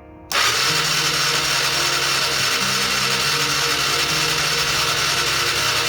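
Honda Fourtrax ATV's electric starter cranking the engine, which doesn't fire: a loud steady whirring that starts suddenly, its pitch stepping up and down.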